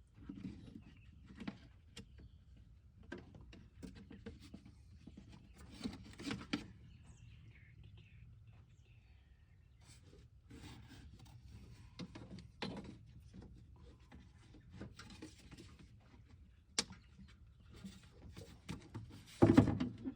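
Scattered faint clicks, knocks and rustling of parts being handled, with one louder thump about a second before the end.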